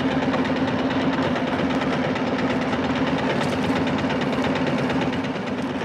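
Small fishing boat's engine running steadily with a constant hum, easing off slightly near the end.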